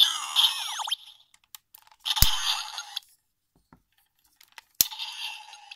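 DX Gashat Gear Dual toy playing electronic sound effects through its small, tinny speaker: a burst of sweeping tones at the start, then a sharp click about two seconds in followed by a short burst of effects, and another sharp click near the end that starts another sound.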